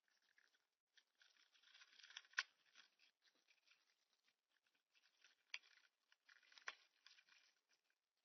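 Faint scratching and crackling of an insect such as a bee, wasp or fly moving about, with no wing buzz. A few sharp ticks cut through, the loudest about two and a half seconds in.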